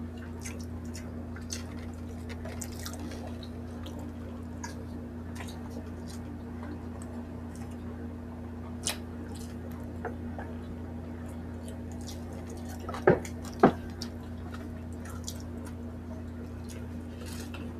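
Close-miked eating sounds: wet chewing and lip smacks as grilled pork belly and rice are eaten by hand, made up of many small scattered clicks. Two louder sharp clicks come about half a second apart late on. A steady low hum runs underneath.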